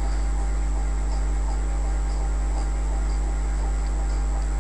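Steady low electrical hum from the recording chain, with a few faint light ticks.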